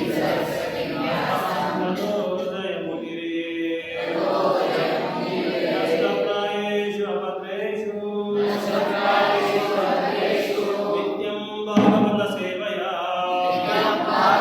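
A group of voices chanting Sanskrit invocation prayers together in a sung melody, in phrases a few seconds long, with a brief thump near the end.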